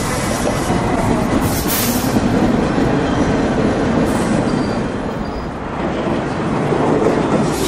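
Subway train running on the track: a steady rumble of wheels and motors, with a brief hiss about two seconds in.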